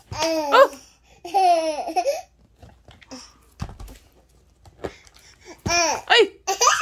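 A one-year-old toddler laughing in high-pitched giggly bursts, three bouts with short pauses between.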